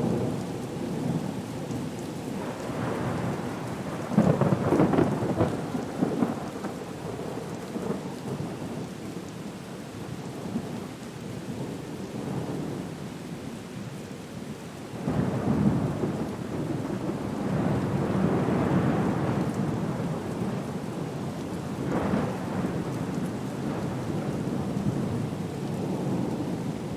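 Thunderstorm: thunder rumbling over steady rain. A loud peal comes about four seconds in, and another starts abruptly about fifteen seconds in and swells for several seconds, with a shorter one a few seconds later.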